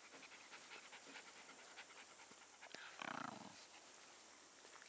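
Faint panting of a wire-haired terrier, with one short louder dog noise that falls in pitch about three seconds in.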